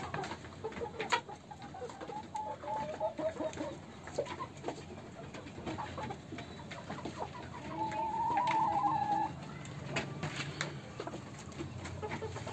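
A flock of young desi hens clucking in short calls, with one louder, drawn-out call about eight seconds in, over scattered sharp clicks.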